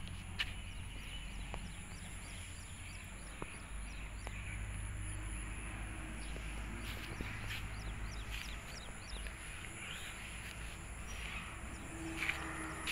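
Birds chirping outdoors, a quick run of short high calls repeated over several seconds, over a low steady rumble, with a few sharp clicks.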